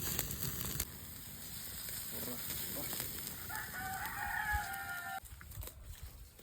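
A rooster crows once about three and a half seconds in, a single long held call lasting under two seconds. A steady hiss fills the first second and then drops away.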